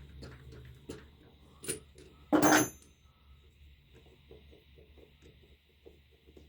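Metal parts being handled: a few light clicks, then one loud metallic clank with a brief ring about two and a half seconds in, followed by faint small taps.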